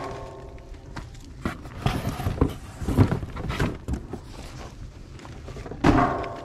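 Footsteps and crunching on gravel beside a burning steel-drum burn barrel, with scattered knocks and crackles. Two short steady-pitched sounds stand out, one right at the start and one near the end.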